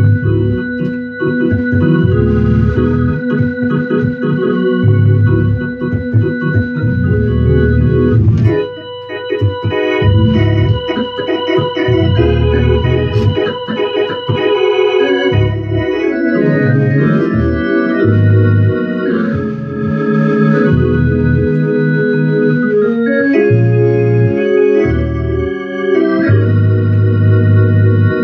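Hammond XK-series organ played in gospel style, held chords over strong bass notes, with a brief break about a third of the way through and quicker chord changes after it.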